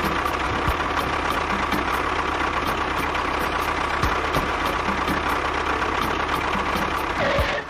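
A small motor running steadily with a constant whine, stopping abruptly just before the end.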